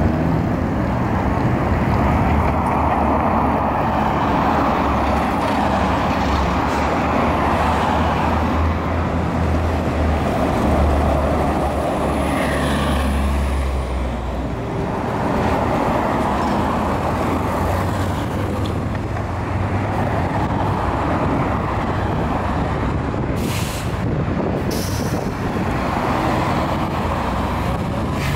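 City street traffic with electric trolleybuses pulling through an intersection: steady tyre and road noise under a low rumble that fades about halfway. Two short hisses come near the end.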